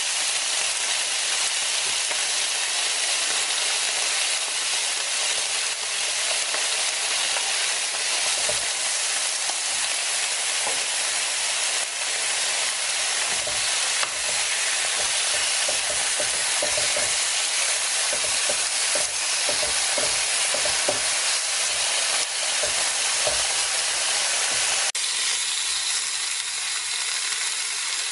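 Pork and mushrooms sizzling on a round, slotted Korean barbecue grill plate: a steady, dense frying hiss that thins a little near the end.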